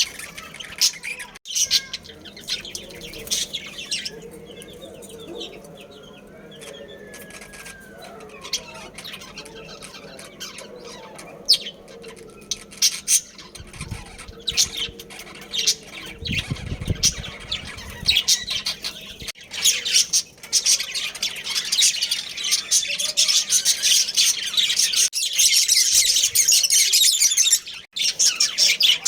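Budgerigars chirping and chattering, scattered at first and building into dense, continuous chatter over the last third.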